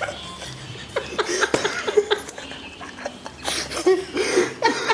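People giggling and chuckling in short bursts, with a knock about a second and a half in.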